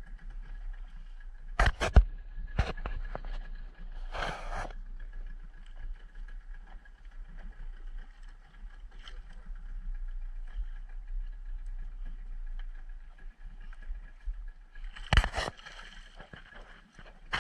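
Boat engine running steadily, with a few sharp knocks about two seconds in, a short scraping burst soon after, and another knock near the end.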